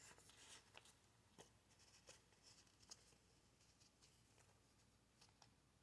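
Faint rustling and small clicks of a Pokémon trading card being slid into a plastic card sleeve and handled.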